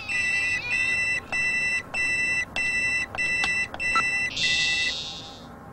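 Spaceship warning alarm beeping, a two-pitch electronic tone repeated evenly a little under twice a second, warning of an air leak. About four seconds in, the beeping gives way to a higher, buzzier electronic tone that fades away.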